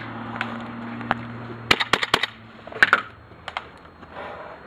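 WE SCAR gas blowback airsoft rifle firing: four sharp snaps of the bolt cycling in quick succession a little under two seconds in, one more shot about a second later, then two faint clicks.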